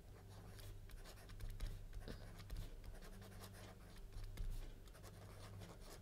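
Faint scratching and tapping of a stylus writing on a tablet, in short, irregular strokes as words are handwritten, over a low steady hum.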